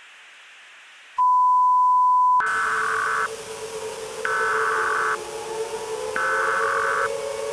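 Emergency Alert System-style broadcast tones. A faint static hiss gives way to a steady beep of about a second, then three short bursts of harsh EAS data-header tones about a second apart over a low wavering drone.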